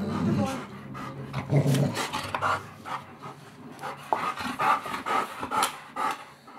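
Bernese Mountain Dogs panting and snuffling in rough play: a run of short, irregular breathy sounds, with a brief low vocal sound about one and a half seconds in.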